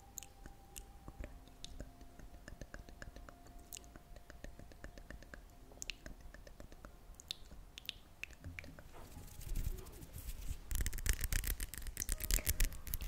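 Close-miked ASMR handling sounds: scattered small clicks and taps, then near the end a dense run of quick crackly, scratchy strokes.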